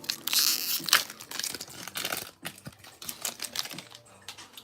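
Crinkling of a foil trading-card booster pack wrapper over about the first second, then a run of light, irregular clicks and taps as the cards are handled.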